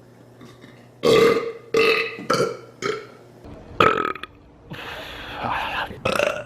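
A person burping: a quick run of four short, loud belches starting about a second in, then a few more separate burps, one of them longer, about a second.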